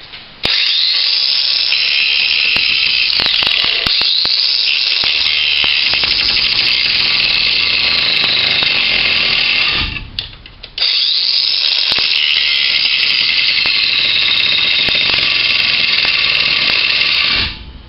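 Ryobi One+ 18-volt cordless 4½-inch angle grinder with a cut-off wheel cutting into a steel screw, running in two long stretches with a short stop about ten seconds in. Its high whine sags and recovers in pitch as the wheel is loaded.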